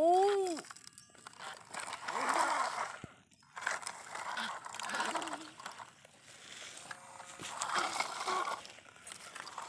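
Plastic toy dump trucks pushed over gravelly soil, their wheels and loads crunching and scraping in several short bursts. A brief hummed voice note trails off right at the start.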